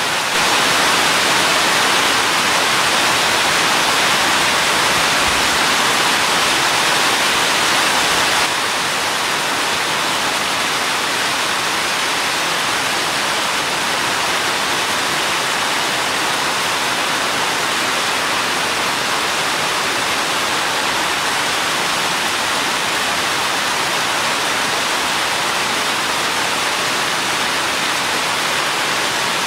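Steady rain falling, a dense, even hiss with no separate drops standing out. About eight seconds in it drops slightly in level and loses some of its brighter hiss, then holds steady.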